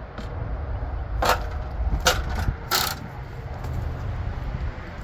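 A ladder being moved, clattering in three sharp knocks about a second apart over a low, steady rumble.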